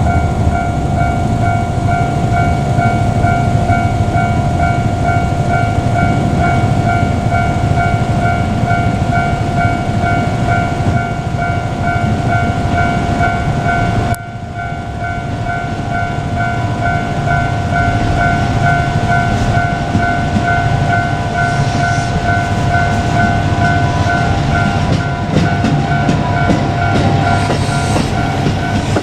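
Japanese railway level-crossing warning bell ringing, a rapid, evenly repeating electronic ding, over the low rumble and wheel clicks of a JR Kyushu KiHa 200 diesel railcar passing.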